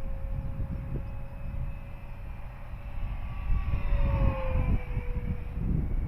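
Whine of an RC model plane's electric motor and propeller in flight, a steady tone whose pitch briefly rises and then drops about four seconds in. Wind gusts buffet the microphone underneath.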